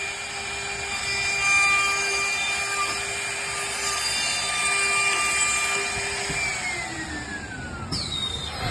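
CNC wood lathe running and working wood, with a steady motor whine over a rough noise. About six seconds in, the whine glides down in pitch.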